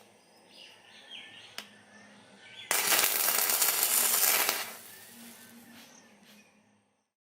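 Welding arc from a homemade battery welder run off three 12 V batteries, struck and crackling loudly for about two seconds before it dies away.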